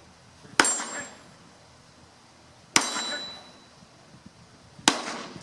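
Three pistol shots about two seconds apart, each followed by the ringing clang of a steel target being hit.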